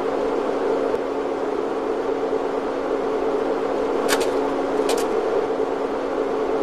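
A steady mechanical hum with hiss and a constant low tone, with two brief high clicks about four and five seconds in.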